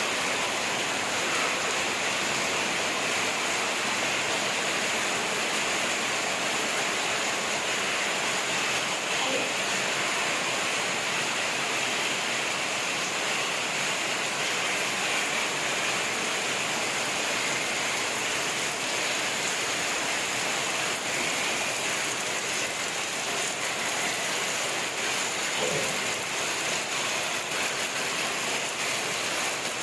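Rain falling steadily, a constant even hiss that holds at the same level throughout.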